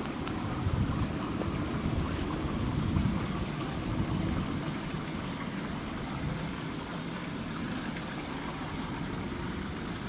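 Small rocky hill stream running over stones, a steady rushing, under a low rumble that swells briefly about a second in and again about three seconds in.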